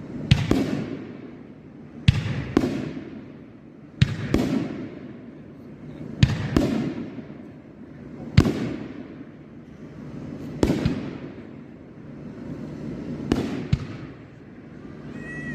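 A 2.5-inch, 36-shot big-bore firework cake firing about one shot every two seconds. Each shot is a sharp bang followed within about half a second by a second bang, then a fading echo.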